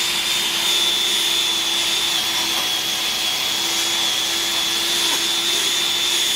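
Electric drill spinning a buffing pad on a plastic headlamp lens, polishing it with rubbing compound. The motor runs at a steady whine, dipping slightly in pitch twice as it is pressed against the lens.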